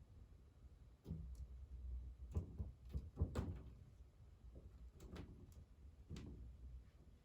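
Scattered light knocks, taps and scrapes of cardboard as a kitten plays in cardboard boxes. They are loudest about three seconds in.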